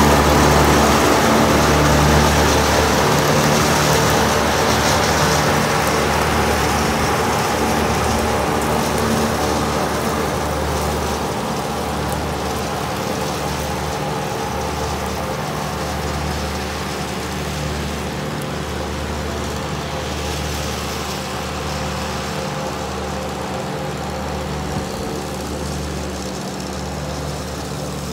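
Vintage farm tractor engine running steadily as it pulls a rotary mower across grass, fading gradually as the tractor moves away.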